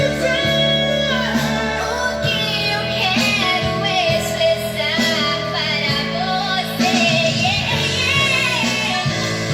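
Music with a singing voice over steady accompaniment.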